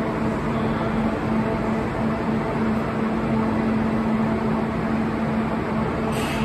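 Kintetsu limited express electric train standing at the platform, its onboard equipment giving a steady hum with one low, even tone.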